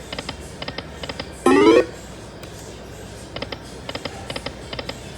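Lightning Link Moon Race video slot machine sound effects: quick paired electronic ticks as the reels spin and stop, with one short, loud rising chime about a second and a half in.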